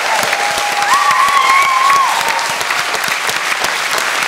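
Audience applauding steadily, with one held cheer rising over the clapping for about a second, starting about a second in.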